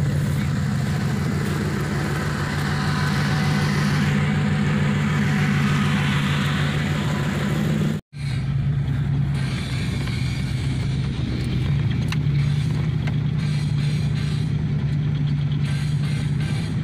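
Truck engine running steadily at low speed while driving, with tyre noise on gravel in the first half. The sound drops out for an instant about halfway through and then picks up again on a dirt track.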